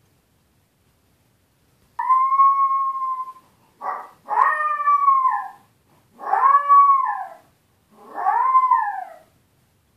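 Puppy howling and crying at being left alone: a long cry held at a steady pitch, a short yelp, then three drawn-out howls that rise and fall in pitch.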